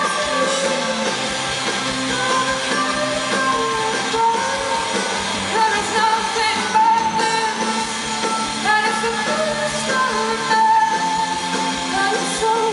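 Live rock band performance: a female lead singer sings long held notes over the band.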